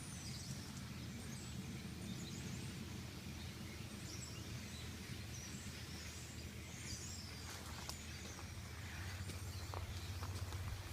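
Faint, scattered high bird chirps over a steady low hum that grows a little louder near the end.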